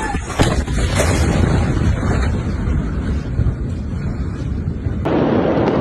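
Blast of the huge Beirut port explosion, an ammonium nitrate detonation: a deep, continuous rumble with sharp cracks about half a second and a second in.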